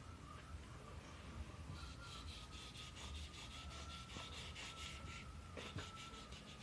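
Faint, rapid rubbing strokes of a painting tool working over a wall surface, running for about three seconds in the middle, over a faint steady high whine.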